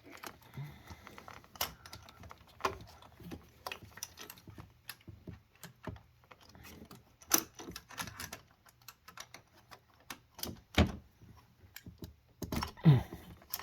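Hand tools clicking and clinking irregularly against metal as a wrench backs out the triple-square bolts holding the high-pressure fuel pump, a few turns at a time.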